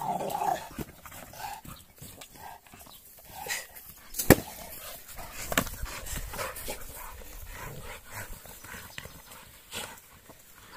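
American bulldogs panting and scuffling as they tug and shake an old fire hose and rubber tyres. A sharp knock about four seconds in is the loudest sound, and a smaller one follows a second later.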